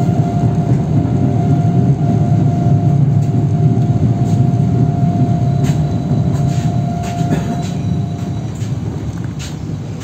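Running noise of an Ivolga electric commuter train heard from inside as it slows into a station: a steady low rumble with a high whine held until about eight and a half seconds in, a few sharp clicks of the wheels over rail joints, and the noise dropping away toward the end as the train brakes.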